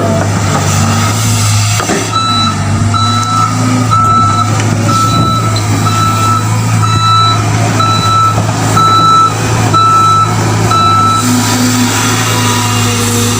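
Excavator's diesel engine running steadily under a travel/reversing alarm that beeps about once a second, around ten beeps, starting about two seconds in and stopping a couple of seconds before the end.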